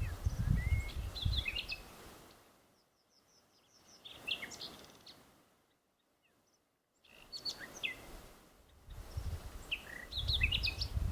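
Small birds chirping and calling in short, high notes, over a low rumbling noise at the start and again near the end. Around the middle the sound drops almost to nothing for a second or so.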